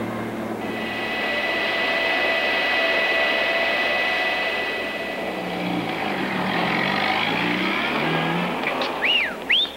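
Jet airliner engines whining over a steady rush of airport traffic noise, with a lower engine sound falling and then rising in pitch midway. Two short rising-and-falling whistles come near the end.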